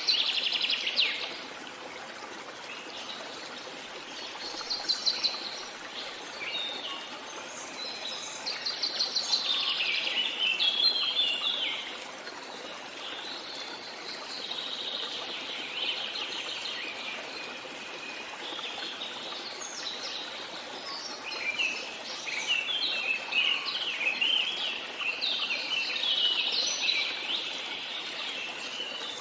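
Songbirds singing in phrases of quick chirps and trills that come every few seconds, over a steady hiss of running water.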